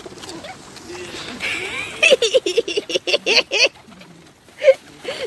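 A bird giving a quick run of about a dozen short, harsh calls, then a single call about a second later.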